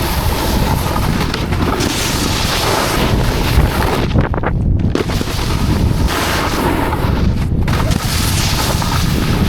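Wind rushing over a helmet camera's microphone while snowboarding, with a steady low rumble and hiss. The hiss thins out briefly twice, about halfway through and again a few seconds later.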